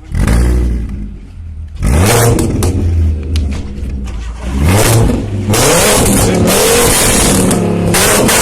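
VW Golf Mk2 engine revved hard in three sharp bursts, each rising in pitch, then held at high revs in a sustained loud run from about five and a half seconds in.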